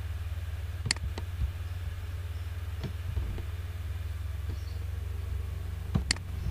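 Scattered sharp clicks of a computer mouse and keyboard while editing code, the sharpest about a second in and a quick pair near the end, over a steady low hum.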